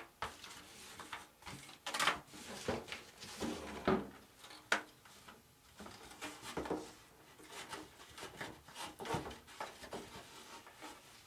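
Irregular light knocks, clicks and rubbing from handling a model airplane wing while a string is pulled through it, with sharper knocks about two and four seconds in.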